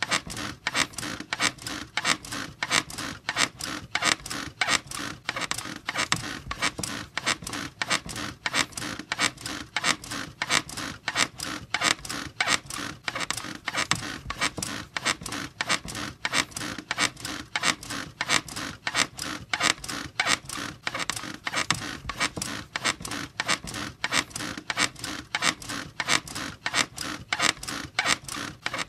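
A squeaky bed creaking over and over in a fast, steady rhythm, each squeak a short, bright scrape.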